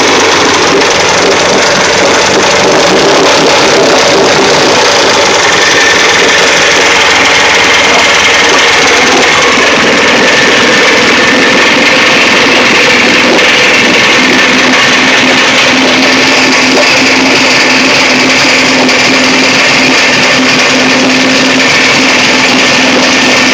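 1972 Evinrude 50 hp two-stroke outboard motor running steadily on a stand, its lower unit in a tub of water, on its first run in over two years.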